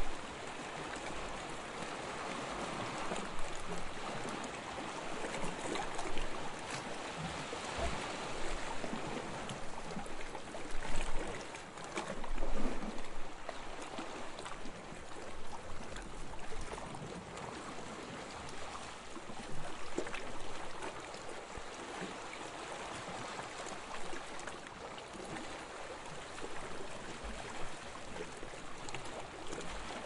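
Calm small waves lapping and washing in a continuous, gently rising and falling wash of water, with a couple of louder swells about eleven and twelve seconds in.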